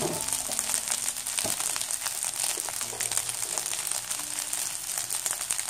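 Egg fried rice sizzling and crackling steadily in a frying pan over a high gas flame.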